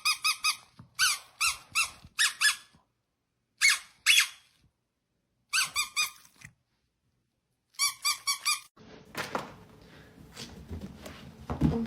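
High-pitched squeaks in short quick bursts of two to six, each burst separated by a pause; about nine seconds in they stop and a low rustling noise follows.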